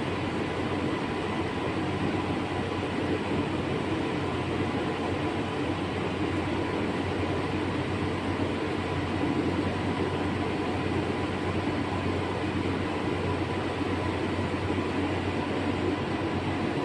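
Steady workshop background noise: a continuous machinery rumble with faint steady hums, unchanging throughout.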